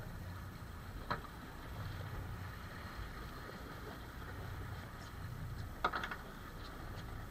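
Choppy sea washing against a boat's hull, a steady low rush of water and wind. Two short knocks cut through it: a light one about a second in and a louder one near six seconds.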